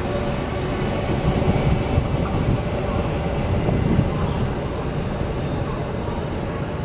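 A push-pull Tze-Chiang express train is running away down the track, a low rumble that slowly fades as it recedes.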